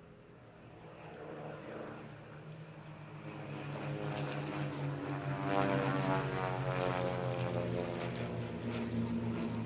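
WWII piston-engined fighter aircraft flying past, the engine and propeller drone growing steadily louder as they approach, with the pitch bending slightly as they pass.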